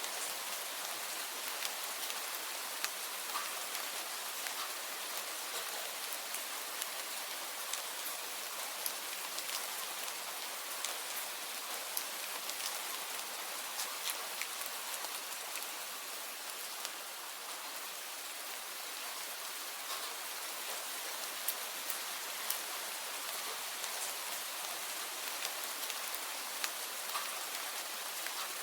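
Steady rain falling, an even hiss with many distinct drops tapping on a surface.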